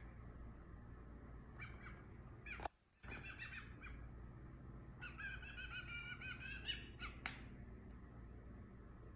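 Fledgling blue jay begging for food: a few short harsh calls, then one long wavering call about five seconds in, followed by two sharp short calls.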